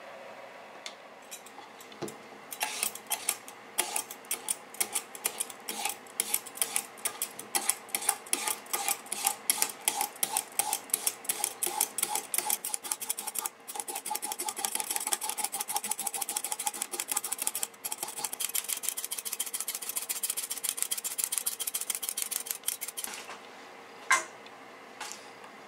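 Vegetable peeler shaving a burdock root into thin slivers over a cutting board: quick, repeated scraping strokes, about three a second, becoming faster and nearly continuous in the middle. The scraping stops shortly before the end, followed by a single knock.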